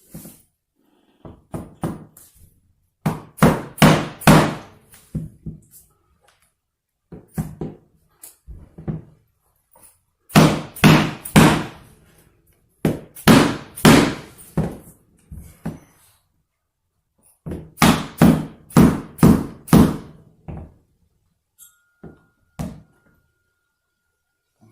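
Runs of blows tapping a maple hardwood floor plank into place, several sharp thuds a second with short pauses between the runs.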